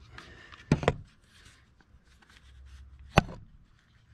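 Knocks and clicks of hand work on a chainsaw's chain tensioner: a quick double knock under a second in, then one sharp click about three seconds in.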